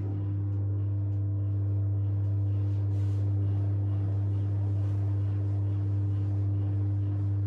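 An AEG washing machine's drain pump humming steadily at a low, even pitch, pumping water out during the interim spin cycle.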